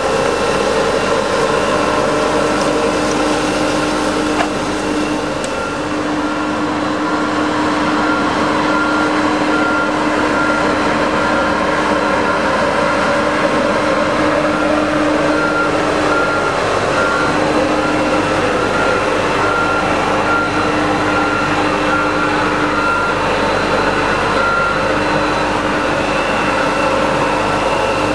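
Scarab Merlin XP hydrostatic truck-mounted suction sweeper working: a loud, steady running of its engine and suction fan with a steady hum. A regular short beeping warning alarm starts a few seconds in and repeats until near the end.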